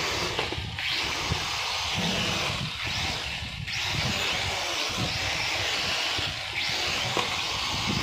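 Mini toy quadcopter's small motors spinning with the propellers off: a high whirr that is throttled up in surges of two to three seconds, dipping briefly between them.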